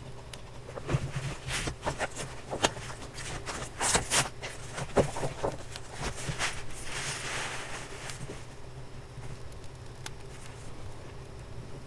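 Paper pages of a notebook being handled and turned: a run of sharp taps and short rustles, then one longer, softer rustle about seven seconds in, before it quiets down.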